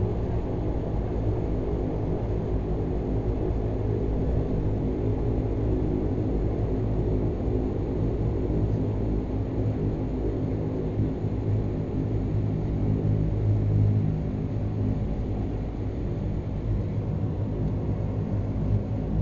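Dash 8 turboprop engines and propellers running steadily at low power, heard from inside the cabin: an even drone with a low hum while the airliner rolls along the ground.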